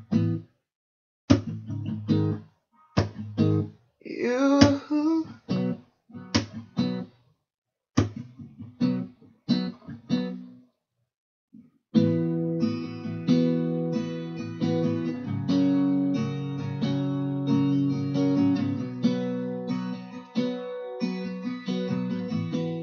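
Acoustic guitar played alone in an instrumental break: separate strummed chords with short pauses for about ten seconds, with a brief wavering, sliding sound about four seconds in. After a moment of silence, steady continuous strumming starts about twelve seconds in.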